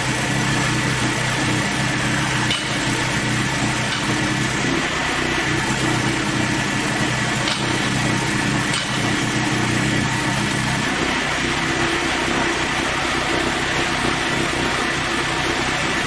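Engine of an MJH1000 hydraulic portable sawmill running steadily, with a thin high whine over the engine note and a few faint clicks.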